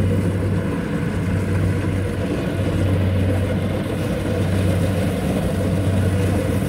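Engine of a rice combine harvester running steadily at constant speed, a low even hum.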